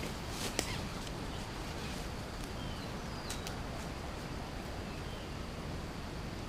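Outdoor ambience: a steady hiss with a few faint, short bird chirps, and a single sharp click about half a second in.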